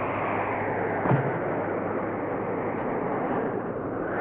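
Steady wind of a snowstorm, with one sharp thud about a second in.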